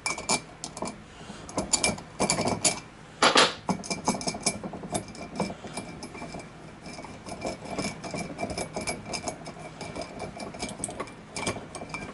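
Metal hand tools and small engine parts clinking and clattering as they are handled and set down: a run of sharp ticks and knocks, with a few louder clanks near the start and again about three seconds in.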